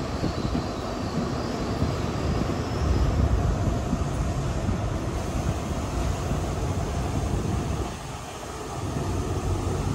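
Passenger train rolling slowly alongside a station platform, heard from an open carriage window: a steady rumble and rushing noise that eases briefly about eight seconds in.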